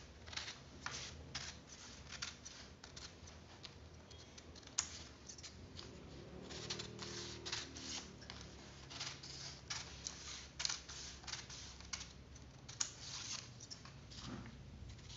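Long-bladed steel scissors cutting through brown paper pattern sheet in a run of crisp snips, about one or two a second, slashing the paper along marked lines.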